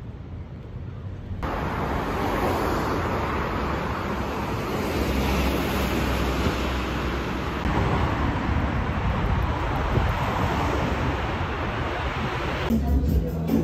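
Wind blowing across the microphone, a steady rushing with a heavy low rumble, over street traffic noise. It comes in abruptly about a second and a half in and cuts off just before the end.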